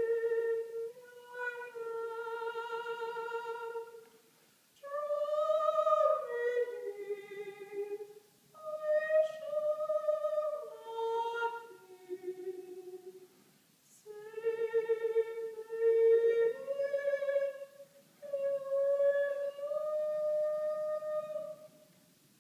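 A woman's solo singing voice, unaccompanied, in sustained phrases with vibrato and short pauses between them, ending on a long held note near the end.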